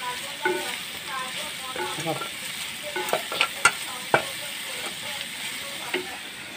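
Sliced bitter gourd frying in a pan, sizzling steadily as a wooden spatula stirs it. A few sharp knocks of the spatula against the pan come a little past halfway.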